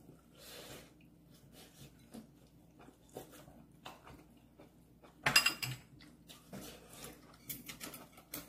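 Table eating sounds: chopsticks and a spoon clicking against dishes, with chewing and lip noises. One louder, short noise comes about five seconds in.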